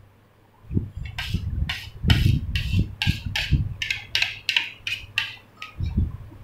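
A metal spoon scraping soft white yogurt sweet off a leaf-shaped plate in short, quick strokes, about three a second. The strokes start about a second in and stop near the end.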